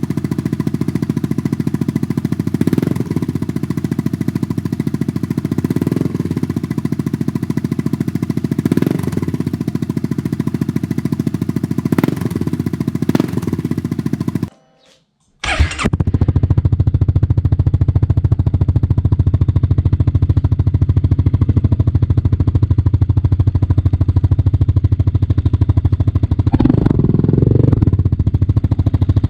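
Honda Forza 300 scooter's single-cylinder engine idling steadily through its exhaust, in two separate clips. The first carries faint ticks about every three seconds. After a short break about halfway, the second idles with more low rumble and gives a short blip in engine speed near the end.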